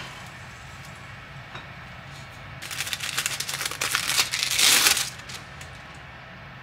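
Plastic film wrapper of a processed cheese slice crinkling as it is peeled open, starting a few seconds in and lasting about two seconds, loudest just before it stops.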